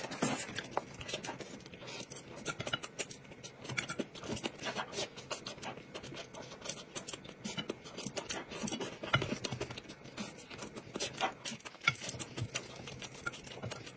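Eating sounds: chopsticks tapping and scraping on a plate while food is bitten and chewed, a steady run of small irregular clicks.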